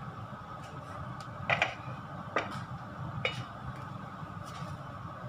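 Spatula and small frying pan knocking on a gas hob: three sharp clicks about a second apart, the loudest a quick double knock about a second and a half in, over a steady low hum.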